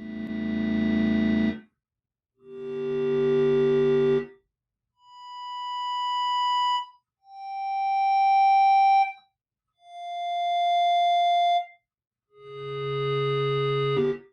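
Moog Subharmonicon analog synthesizer sounding six separate held notes, each swelling in and then cutting off. The first two and the last are low and buzzy; the middle three are higher, thinner tones stepping down in pitch.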